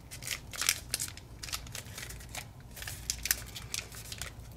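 Paper crinkling and crackling in short, irregular rustles as fingers pinch and press folded pleats into an origami model.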